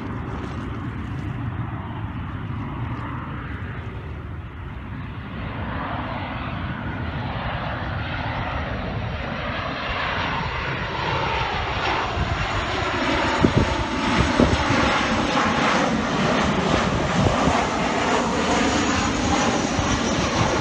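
Jet airliner on landing approach: the engine noise of the low-flying twin-jet grows steadily louder as it comes in overhead.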